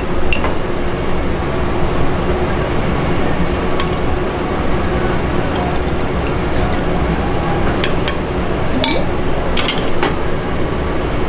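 Steady kitchen background noise with a handful of sharp clinks as a ladle and spoon knock against metal pots, a pan and glass jars, the last ones near the end as a glass jar's lid is opened.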